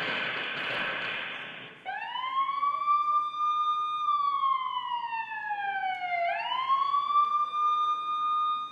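A hiss fades out over the first two seconds. Then an emergency-vehicle siren sound effect starts wailing: it rises, holds, falls slowly, and rises again to hold near the end.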